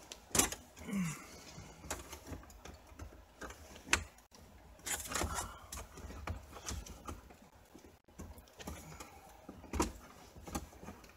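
Scattered clicks, knocks and rattles of a car stereo head unit being worked loose and pulled out of its dashboard slot, with a few louder knocks near the start, about four seconds in and near the end.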